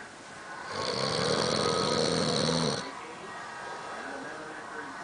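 A sleeping man snoring loudly: one long snore of about two seconds starting near the first second, then quieter breathing until the next snore.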